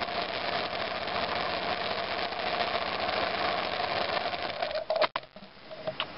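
2002 BMW F 650 GS Dakar's single-cylinder engine idling with a fast, even beat, then cut off sharply about five seconds in. A faint tick is heard near the end.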